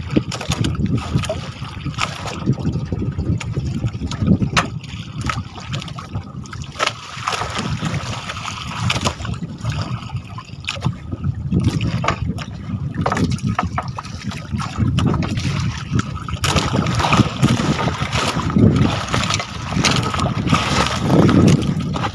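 Water sloshing and splashing around a small fishing boat, with wind on the microphone and scattered knocks and clatter from handling on board.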